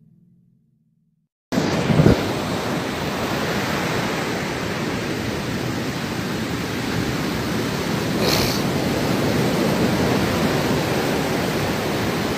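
Steady rushing of wind and breaking surf on an open beach, starting suddenly about a second and a half in, with a short bump just after it starts.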